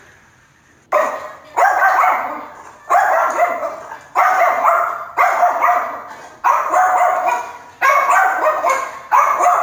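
A dog barking: about eight loud barks, roughly one every second, starting about a second in.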